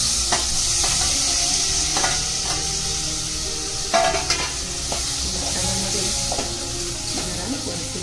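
Pieces of shark fish sizzling in hot oil and masala in an aluminium pot while a metal spoon stirs them, scraping the pot and clinking against it a few times, most sharply about two and four seconds in.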